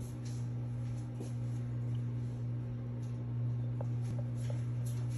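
A steady low hum, with a few faint small clicks and rattles from a baby gumming a plastic suction-cup spinner toy.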